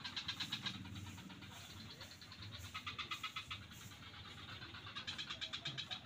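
Frogs calling in a swamp: bouts of rapid pulsed, rattling calls about a second long, repeating every two to three seconds.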